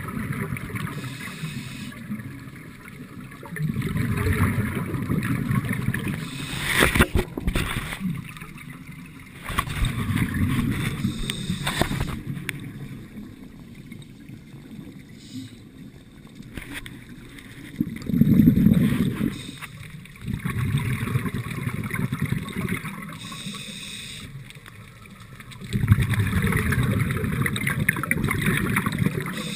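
Scuba regulator exhaling underwater: a burst of bubbles with a low rumble every five or six seconds, each lasting two or three seconds, as a diver breathes close to the camera. A few sharp clicks about seven seconds in.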